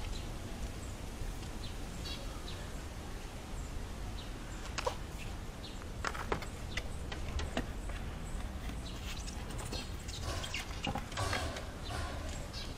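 Scattered light knocks, clicks and rustles from a hand-pump oil extractor bottle, its hose and a cloth towel being handled and set down on a tyre, over a steady low rumble.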